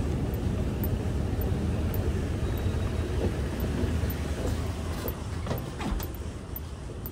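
Steady low rumble from inside a moving vehicle, easing off about five seconds in, with a few light knocks around that point.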